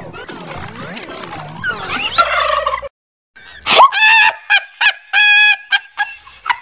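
Music, cut off about three seconds in by a short break, then a string of short, high-pitched squawking calls, some clipped and a few held, as a comic sound effect.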